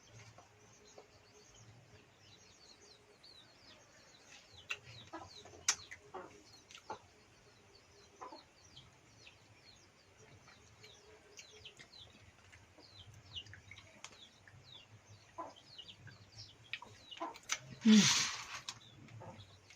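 Chickens clucking and small birds chirping in short, high notes, with a few sharp clicks. Near the end there is one loud, harsh squawk about a second long.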